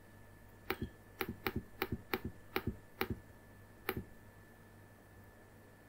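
Keystrokes on a computer keyboard: a quick run of a dozen or so clicks, many in close pairs, stopping about four seconds in.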